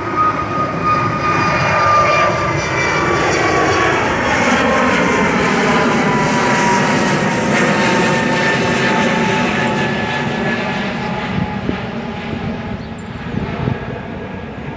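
Airbus A320-family jet airliner climbing out after takeoff: a loud, steady jet engine rush with whining tones that slowly fall in pitch. The sound fades through the second half as the plane draws away.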